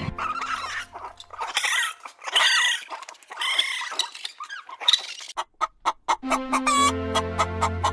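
Chickens clucking in short pitched calls through the first half, followed by a run of sharp clicks and then steady held tones with quick regular ticks near the end.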